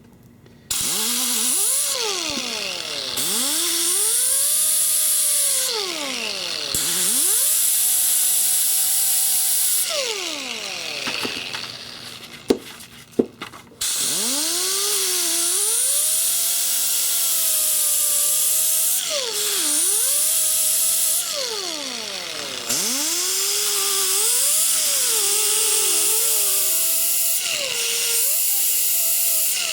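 Hand grinder grinding down a mild-steel cutter blank, a steady grinding hiss over a motor whine that sags and rises in pitch as it is pressed into and eased off the metal. It stops about ten seconds in, a few clicks follow, and it starts up again about four seconds later.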